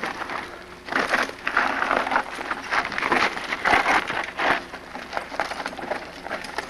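Mountain bike rolling over a dirt forest trail with twigs and leaf litter as the rider passes close by: an irregular rustling, clicking noise, loudest for a few seconds in the middle and fading as the bike moves away.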